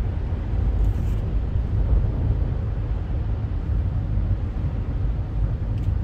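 Steady low rumble of a vehicle driving slowly on a snow-covered highway, heard from inside the vehicle: engine and road noise.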